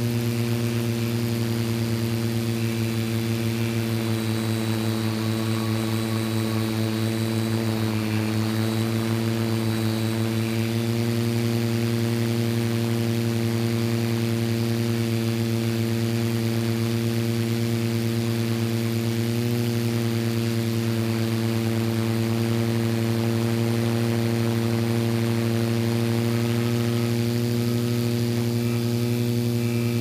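Electric motors and propellers of a small camera drone buzzing steadily, heard close up from the drone's own camera. The pitch holds even, dipping slightly twice.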